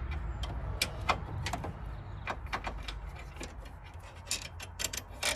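Irregular light metallic clicks and knocks as a universal battery clamp's hook rod and fittings are handled and worked into place, with a steady low rumble underneath.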